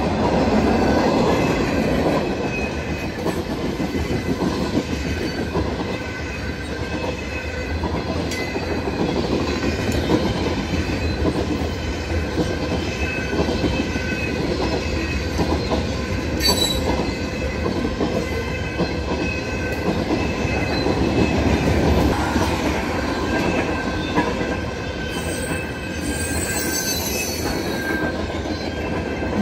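Freight train cars rolling past on steel rails, a steady rumble with wheel clatter and thin high wheel squeal. The squeal grows sharper about halfway through and again near the end.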